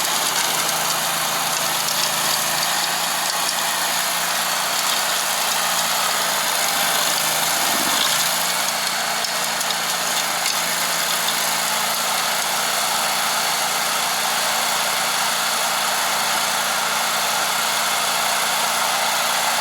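Stump grinder running steadily at a constant engine pitch, its cutting wheel grinding into a tree stump.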